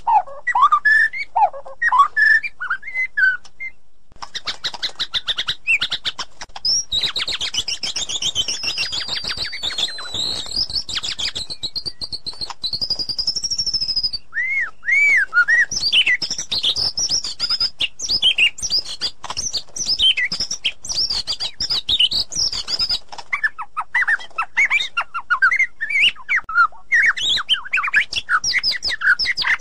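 White-rumped shama singing a long, varied song of clear whistled phrases, quick trills and rapid clicking notes, with a brief pause about four seconds in.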